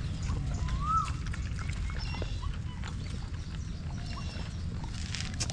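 A puppy gives one short whimper, rising then falling in pitch, about a second in, over a steady low rumble.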